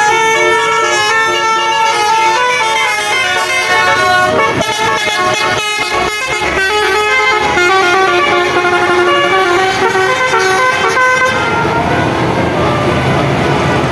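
A bus's basuri telolet musical horn playing a melody of held notes stepping up and down. About three-quarters of the way through the horn stops and a loud rushing rumble of the bus's engine takes over.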